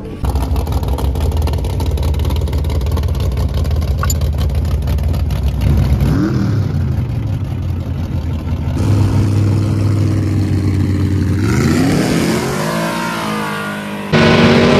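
Lifted mud-drag pickup's engine idling at the start line, then revving with a steeply rising pitch and launching at full throttle down the mud track. The sound jumps suddenly louder about a second before the end.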